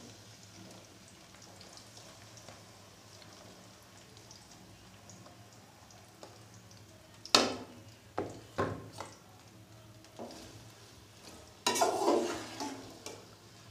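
Sliced onions frying in hot oil in an aluminium pot: a low steady sizzle, a few sharp knocks about halfway through, and a louder rush of sizzling and stirring near the end.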